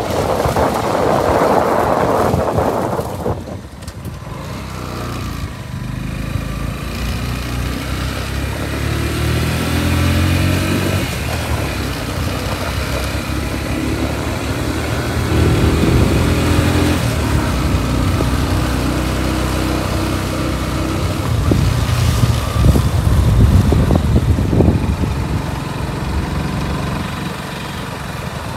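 Engine of the vehicle carrying the camera, running along a wet road, its note rising and falling several times as it speeds up and slows. Wind buffets the microphone for the first few seconds.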